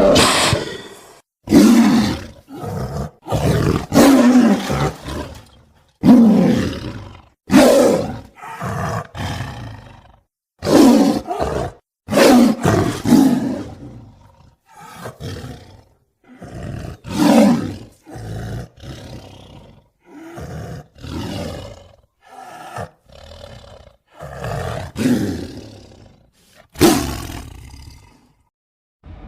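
Sound-effect dinosaur roars and growls for a Yangchuanosaurus, a long string of separate calls with short silent gaps between them, several falling in pitch as they fade.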